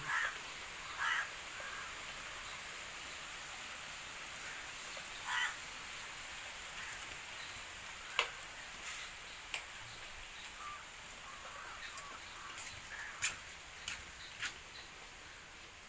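A bird giving a few short calls, with scattered sharp clicks in the second half, over a faint steady hiss.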